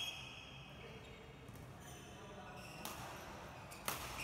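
Badminton racket striking a shuttlecock with a sharp crack near the end, on an indoor court. A brief squeak of shoes on the court floor comes right at the start.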